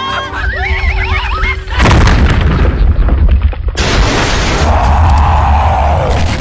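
Cartoon sound effects: wavering high-pitched cries over background music, then, almost two seconds in, a sudden heavy boom that turns into a long deep rumble with a rushing sound rising and falling over it.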